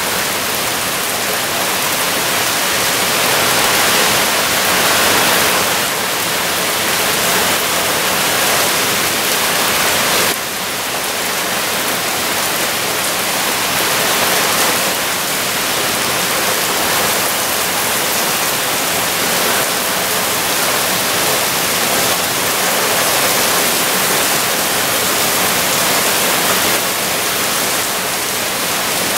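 Heavy rain pouring down with a steady, loud hiss, splashing on hard surfaces; the level drops suddenly about ten seconds in.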